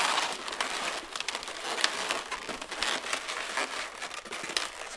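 Long inflated latex twisting balloons rubbing, squeaking and crackling against each other as they are handled, twisted and woven together: an irregular run of short, sharp squeaks and crinkles.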